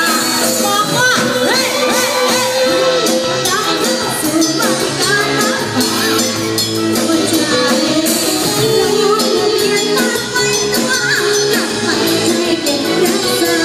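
Live band playing a pop song: drum kit, electric guitars and a female lead singer, loud and continuous.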